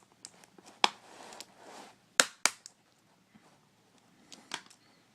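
Plastic clips of a laptop's keyboard bezel snapping loose as the panel is pried up by hand: several sharp snaps, two close together a little after two seconds, with a soft scraping of plastic in between.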